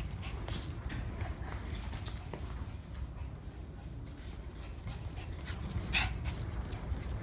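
A young Shih Tzu making dog noises in rough play with a kitten, over a steady low rumble, with one short louder sound about six seconds in.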